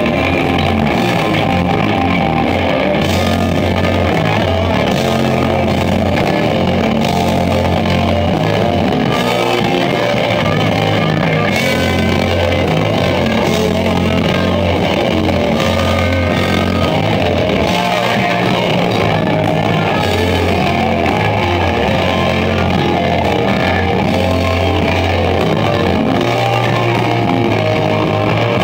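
Rock band playing live at full volume: electric guitars, bass guitar and drum kit, with cymbals crashing over a steady low bass line.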